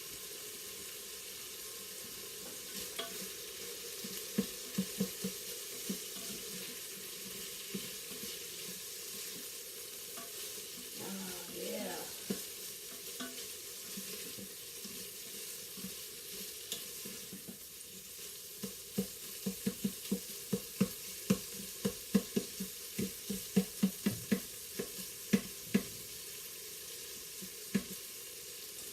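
Cubed chicken sizzling as it browns in a Farberware pressure cooker's pot, with a utensil stirring and knocking against the pot. The knocks come a few a second through the second half.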